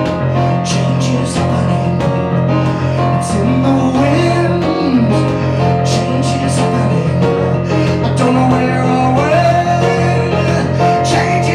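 A man singing and accompanying himself on a digital piano, his voice holding and sliding between notes over steady held chords.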